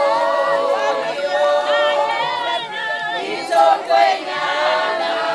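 A group of women singing together without instruments, many voices in chorus, with two brief louder cries about three and a half seconds in.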